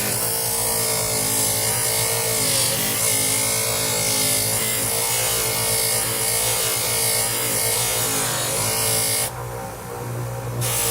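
Bench grinder fitted with a buffing wheel and blue polishing compound, running steadily while a 1/4-inch aluminium plate is buffed on it. About nine seconds in, the hiss drops out and the sound goes quieter for over a second, then comes back.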